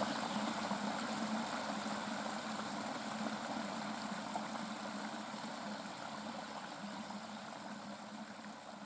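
Shallow stream running over stones, a steady rushing of water that slowly fades out.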